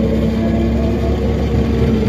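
2006 Orion VII diesel-electric hybrid bus running at a steady speed, heard from inside the passenger cabin: a steady whine with a low drive and road rumble underneath.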